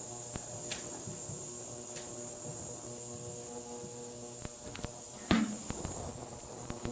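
Parts washer's electric pump motor running with a steady hum and high hiss. Light clicks of small metal parts are scattered through it, with one louder knock about five seconds in.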